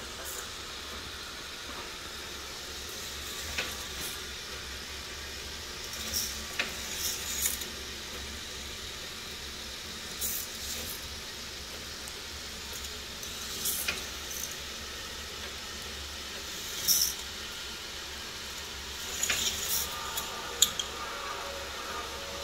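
Motorised K'NEX roller coaster model running: a steady whir from its lift motors and chains, with scattered rattles and clicks as the cars roll over the plastic track, the loudest near the end.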